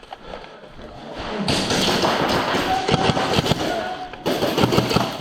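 Airsoft guns firing rapid shots, a dense clatter of clicks and knocks that starts about a second and a half in, dips briefly near the end, then resumes.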